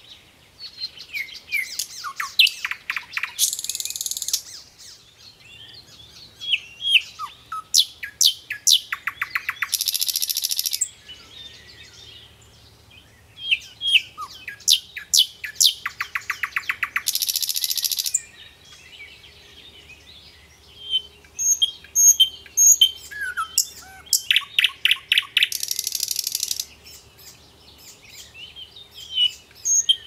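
Nightingale singing: a run of varied phrases of sharp chirps and whistled slides that build into fast rattling trills, with short pauses between phrases.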